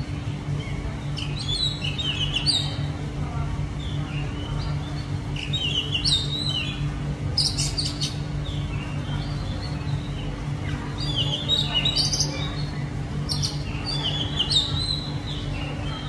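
Oriental magpie-robin singing: spells of varied, quick whistled and chattering notes that come and go every few seconds, over a steady low hum.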